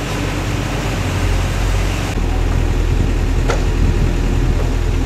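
Steady low mechanical drone with a constant hum, like running machinery, and a single sharp click about three and a half seconds in.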